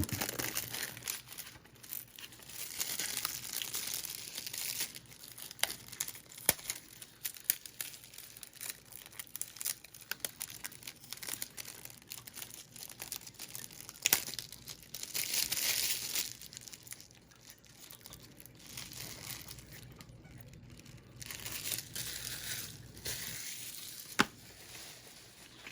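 Plastic wrap crinkling and tearing as a DVD is unwrapped and opened, with a few sharp plastic clicks.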